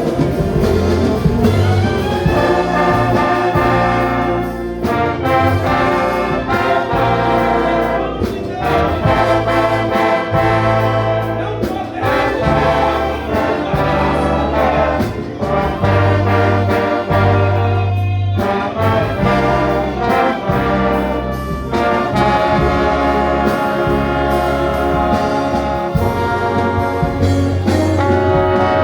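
An orchestra playing a slow piece with a prominent brass section of trombones and trumpets, sustained chords over a bass line that moves in steps.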